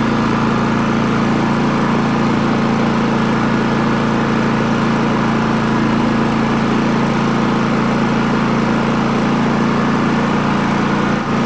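Champion 4500-watt dual fuel inverter generator running steadily at raised speed with its eco mode switched off.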